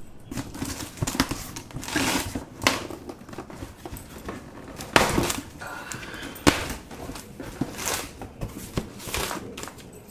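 A delivery package being opened by hand: irregular rustling and crackling of packaging with a few sharp knocks as it is handled.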